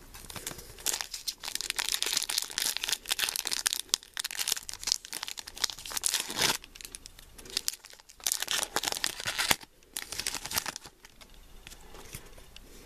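Foil wrapper of a Pokémon Sun & Moon booster pack crinkling and tearing as it is ripped open by hand, in dense spells for about six seconds, then in shorter spells, going quiet near the end.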